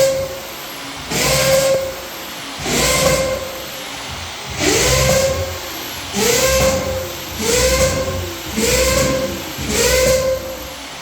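Wooden floorboards squeaking again and again as they are stepped on, about seven times. Each squeak rises quickly in pitch and then holds a steady tone: the creak of boards not yet pulled tight to the joists.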